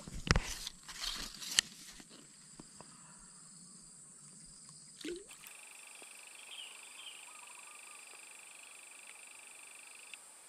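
A few sharp knocks and rustles in the first couple of seconds, then insects chirring steadily at a high pitch; one higher buzzing chirr cuts off suddenly near the end.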